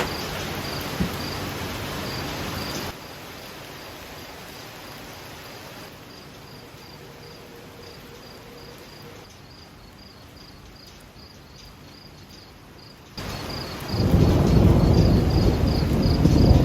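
Crickets chirping in a steady, even pulse over the hiss of rain; a low thunder rumble swells up near the end.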